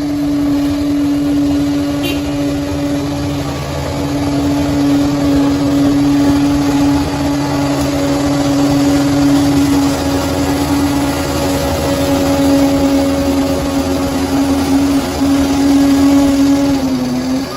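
Bulldozer's diesel engine running steadily, a constant drone whose pitch sags briefly near the end.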